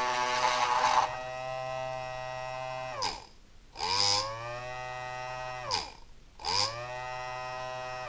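3D-printed mini Thunderbolt-style electromechanical siren with a single-tone five-port chopper and no blower, spun up three times. Each time its tone rises, holds steady for about two seconds, then falls away as it winds down. It is not very loud at all because of debris under the intake, and the chopper hits the sides as it winds down.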